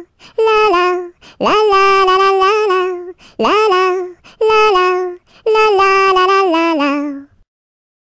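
A single high voice singing "la la la" unaccompanied, in short phrases separated by brief gaps, with a couple of quick upward swoops in pitch. The singing stops a little past seven seconds in.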